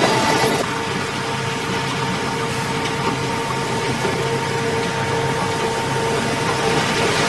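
Heavy construction machine's diesel engine running steadily, with a constant whine over the engine noise; it drops a little in level about half a second in.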